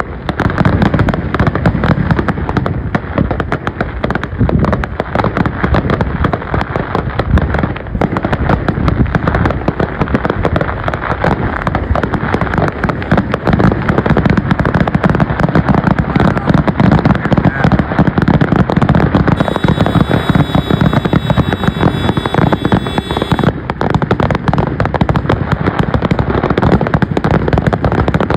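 Aerial fireworks going off in a dense, continuous barrage of bangs and crackles. A high steady tone joins in for a few seconds about two-thirds of the way through.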